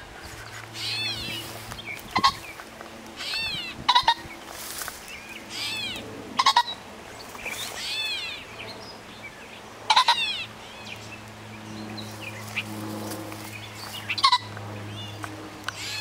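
Birds calling: short, sharp calls repeated every two to four seconds, some in quick pairs, with chirpier notes between and a faint steady low hum underneath.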